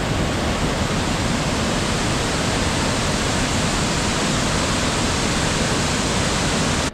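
Loud, steady rush of a powerful waterfall in heavy flow after rain, with water crashing down without a break; it cuts off abruptly at the end.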